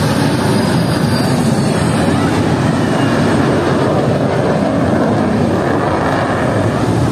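F-16 fighter jet's engine heard in a low display pass: a steady, loud rush of jet noise, with a faint high whine that slides down in pitch over a couple of seconds.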